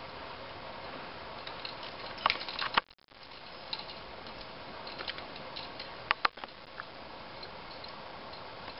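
Steady background hiss with scattered sharp clicks and ticks, a cluster of them about two and a half seconds in and two loud ones a little after six seconds. The sound cuts out for a moment just before three seconds in.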